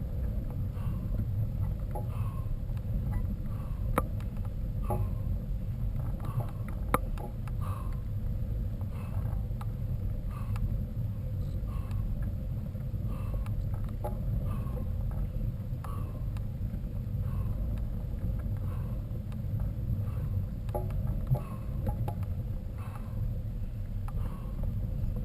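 Mountain-bike ride with a steady low rumble of wind and riding noise on the camera microphone, a short faint squeak about once a second and a few sharp clicks from the bike.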